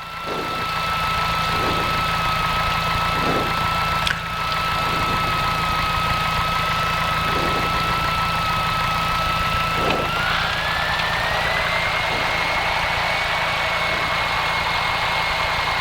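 Light aircraft's piston engine running steadily at low power while taxiing, heard from inside the cockpit, with a thin steady whine that slides up in pitch about ten seconds in and holds there. A single sharp click about four seconds in.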